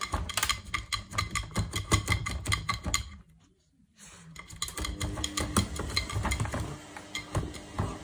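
Beagle puppy's claws scratching and tapping fast on the glass door of a front-loading washing machine, a rapid run of clicks and scrapes. It breaks off for under a second about three seconds in, then starts up again.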